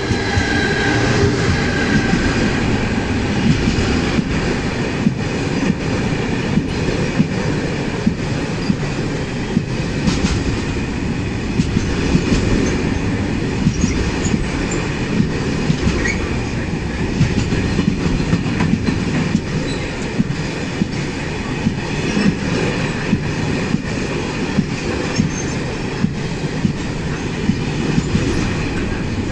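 Freight train of covered wagons rolling past close by behind an electric locomotive: a steady rumble of wheels on rail, with regular sharp clacks as the wheelsets cross rail joints.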